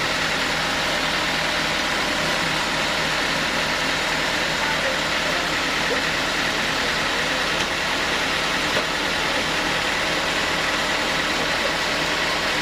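Homemade sawmill machine running steadily, its engine-driven saw making an unbroken, even machine noise.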